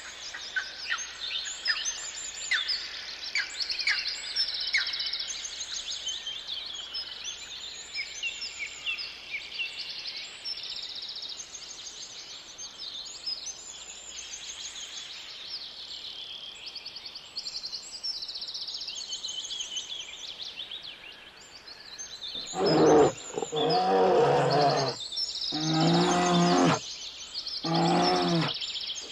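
Small birds chirping and singing steadily. Near the end, a large animal gives four loud, pitched calls about a second long each, louder than the birdsong.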